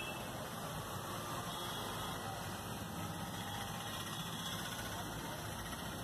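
Steady hum of idling vehicle engines and street traffic.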